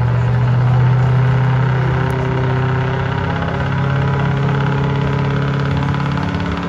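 Diesel pickup truck engine running steadily at raised revs while hitched to a pulling sled, its pitch shifting slightly about halfway through.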